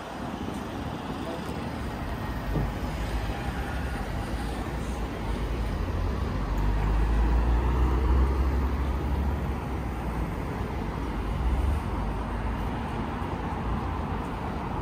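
Road traffic: cars passing on a city street, a steady rumble and hiss that swells to its loudest about halfway through, then eases off.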